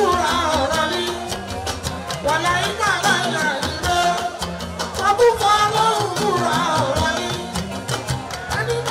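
Music: a singing voice over steady, busy percussion.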